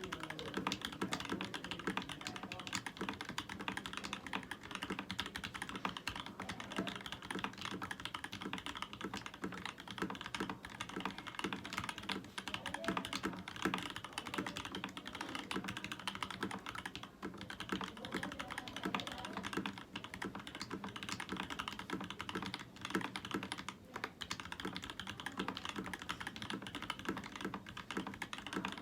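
Continuous fast typing on a Leopold FC750 mechanical keyboard fitted with Equalz C3 Tangerine V3 linear switches: a steady stream of key clacks with a few short pauses.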